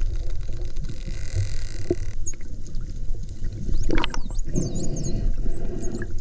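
Dolphins heard underwater: many short high whistles that sweep up and down in pitch, mostly from about two seconds in, with scattered clicks over a steady low rumble of water noise.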